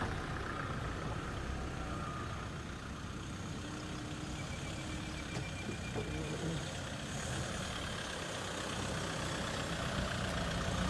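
Land Rover Defender engine running at low revs as the truck crawls slowly along a dirt track, growing a little louder near the end as it comes closer.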